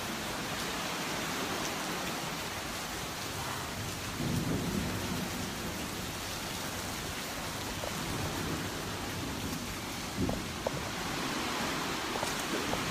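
Small sea waves washing in over sand and shingle under a pier: a steady hiss of surf with louder swells about four and eight seconds in, and a few sharp clicks about ten seconds in.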